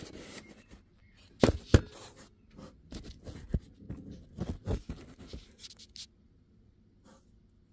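Close handling noise of a phone being propped up with pieces of cardboard. There are two sharp knocks about one and a half seconds in, then a run of taps and scraping of cardboard, which stops about six seconds in.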